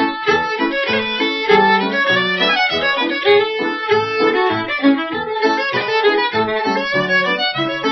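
Background music: a lively fiddle tune of quick, short notes played without a break.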